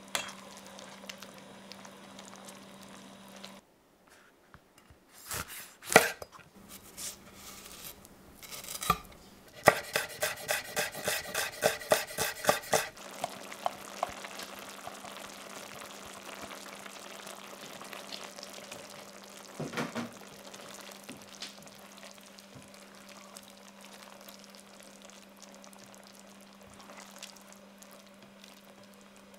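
Spaghetti and chicken simmering in a stainless steel frying pan over a steady low hum, with a spatula stirring and scraping against the pan. Partway through come a few loud knocks, then a run of sharp taps, about three a second, for roughly three seconds.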